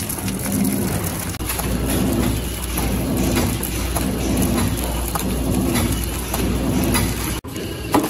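Horizontal flow-wrap (pillow-bag) packing machine running, with a dense mechanical rush over a steady low hum and a rhythmic beat about twice a second as it feeds, wraps and seals parts into film bags. The sound cuts out for an instant near the end.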